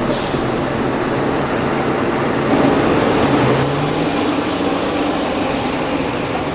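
Heavy harvest machinery running with a steady engine drone under a broad mechanical rumble. It grows louder, and the engine note rises slightly, around three seconds in.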